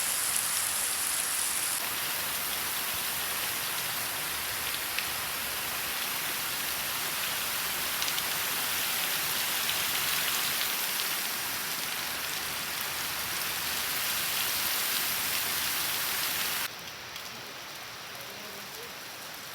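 Heavy rain pouring down in a steady hiss. Near the end it drops suddenly to a softer level.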